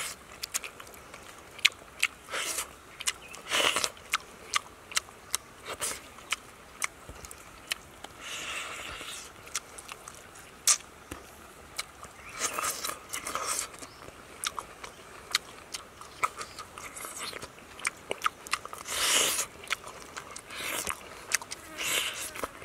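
Close-up eating sounds of a person biting, sucking and chewing meat off a piece of steamed turtle held to the mouth: many sharp wet clicks and lip smacks, with several short slurps.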